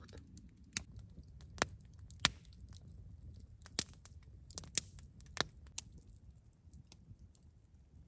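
Wood campfire crackling: sharp, irregular pops, about seven of them in a few seconds, over a faint high hiss and low background noise.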